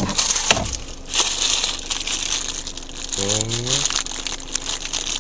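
Clear plastic bag crinkling and rustling as the new engine mount inside it is handled and turned over, with scattered small clicks.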